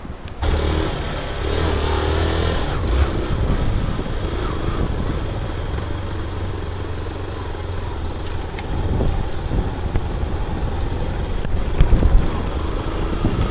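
Motorcycle engine running steadily while riding over a rough dirt track, with a few short knocks from the bumpy ground.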